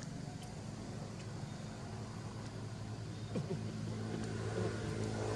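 Motorbike engine running steadily on a nearby road, its hum slowly growing louder as it approaches.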